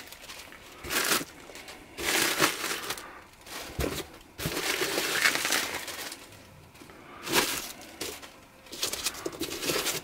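Plastic packing bags and bubble wrap rustling and crinkling in irregular bursts as they are handled and pulled out of a cardboard box.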